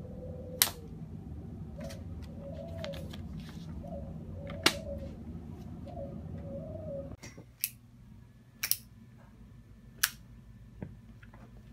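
A few sharp clicks over a low room hum. For the first seven seconds a soft call rises and falls about once a second. After a cut about seven seconds in, the hum drops away and a few more clicks follow.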